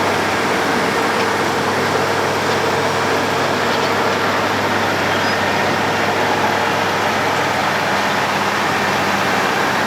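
Road planer (cold milling machine) at work: a steady diesel engine drone over the dense, even noise of the milling drum cutting the road surface.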